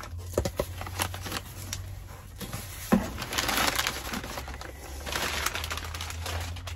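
Plastic bags of packaged cosmetics being handled and pulled from a shipping box: plastic crinkling with light clicks and knocks, and one sharper knock about three seconds in.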